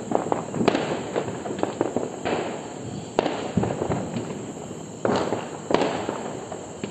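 Aerial firework rockets bursting overhead: four loud sharp bangs, irregularly spaced a half-second to a few seconds apart, with a scatter of smaller crackling pops in between.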